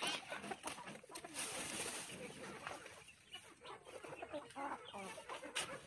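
Chickens clucking softly in the coop, a few short calls, with light rustling of lime-tree leaves and branches being handled.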